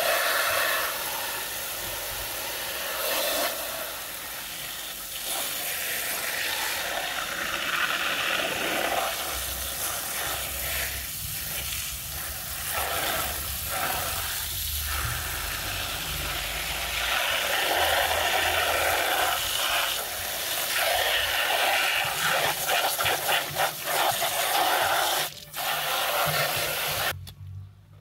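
Water from a hose spray nozzle hissing and splashing onto a plastic toy dump truck, rinsing away foam and mud. The spray stops abruptly near the end.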